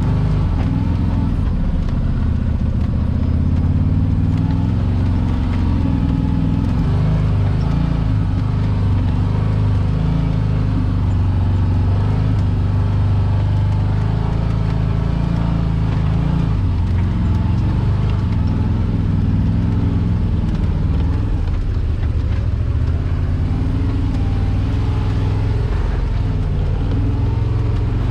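Side-by-side UTV engine running at low speed as the vehicle crawls over slickrock, its pitch rising and falling with the throttle.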